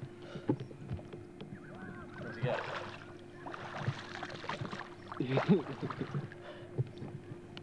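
Splashing of legs wading through knee-deep water, coming in a few bursts, with a short voice-like call about five and a half seconds in.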